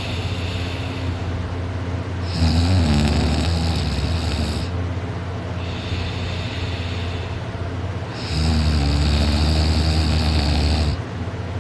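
A person snoring loudly in sleep: two long snores about six seconds apart, each lasting two to three seconds, with softer breathing between them.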